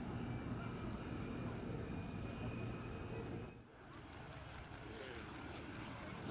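Gloster Meteor's twin turbojets whining steadily as it taxis. After a brief drop about three and a half seconds in, the jet noise returns with a steady high whine, growing louder as the aircraft climbs out after takeoff.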